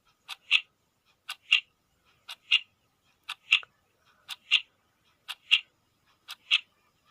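Clock tick-tock used as a countdown timer: a soft tick followed by a louder tock, repeating once a second, seven times.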